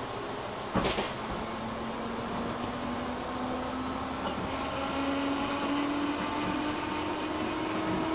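JR 205 series 600 subseries electric train heard from inside the car: steady running noise with the traction motor whine rising steadily in pitch as the train gathers speed. A sharp clack about a second in.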